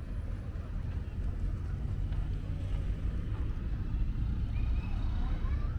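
Wind buffeting the microphone as a low, unsteady rumble, over the hum of distant city traffic.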